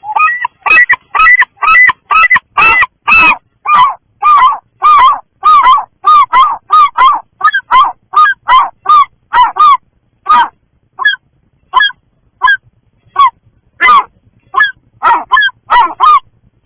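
A bird giving a rapid series of loud, short calls, about two a second, thinning to scattered calls after about ten seconds.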